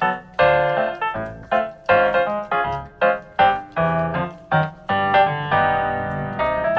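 Background music: a bouncy keyboard tune with plucky piano-like notes in a quick, steady rhythm.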